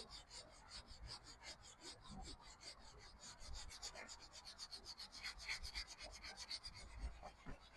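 Faint rubbing of a leather car seat by hand, in quick back-and-forth strokes about five a second. The leather is being prepped, its dirt and old finish rubbed off.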